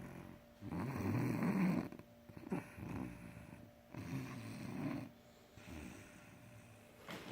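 A boy snoring in his sleep: three loud snores about a second long each, a few seconds apart, then a quieter stretch of breathing before the next snore starts.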